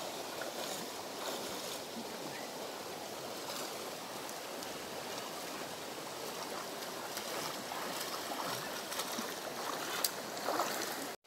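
Shallow river flowing over a rocky riffle: a steady rush of water. A few faint clicks near the end.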